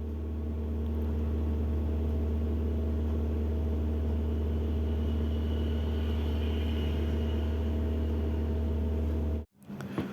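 A steady low electrical hum with several even tones, from mains-powered workbench equipment during soldering, cutting off suddenly near the end.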